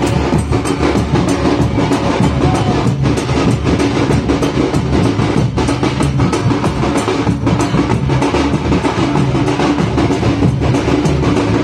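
Drums played loudly and without pause in a steady, continuous rhythm, with many sharp strokes.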